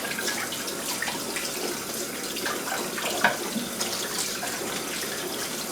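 Kitchen sink faucet running while hands are rinsed under it, a steady rush of water with small irregular splashes.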